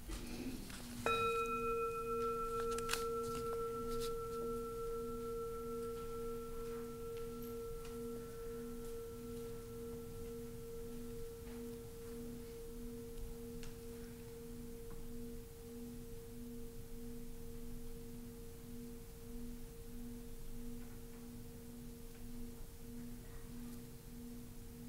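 Singing bowl struck once about a second in, then ringing with a steady pure tone over a lower hum that throbs evenly. Its higher overtones die away first while the main tone fades slowly.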